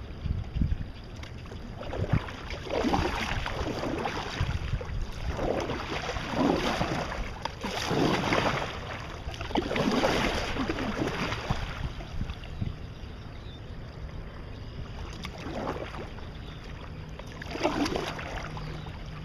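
Kayak paddle strokes dipping and splashing in the water, a swish every two to three seconds, over a low rumble of wind on the microphone.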